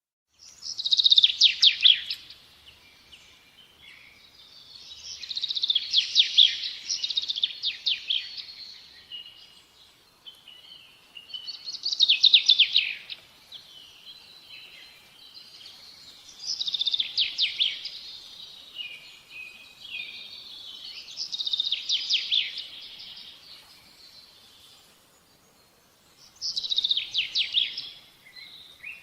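A bird singing a short phrase of rapid, high chirping notes, six times, about every five seconds.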